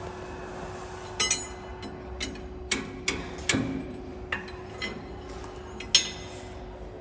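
Irregular metal-on-metal clinks and knocks, about nine, some ringing briefly, as the conical twin-screw extruder's screw shafts are pushed into the gearbox coupling sleeve. A steady low hum runs underneath.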